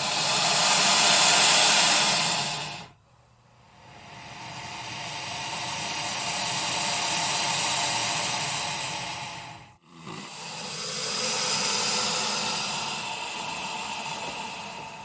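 Alligator hissing: three long, forceful hisses with brief breaks between them. The first lasts about three seconds, the second about six, and the third starts about ten seconds in.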